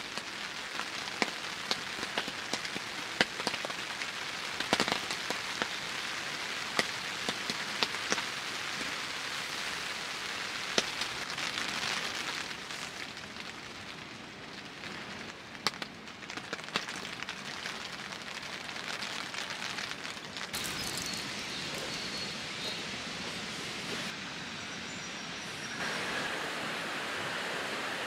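Steady rain on a tent and its window, with many sharp, loud drops striking close by in the first half and fewer later on.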